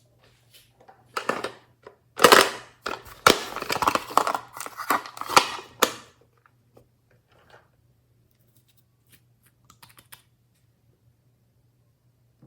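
Glossy slime being squeezed and worked by hand, giving a run of wet crackles and pops for a few seconds, loudest about two to six seconds in. After that come only scattered small clicks.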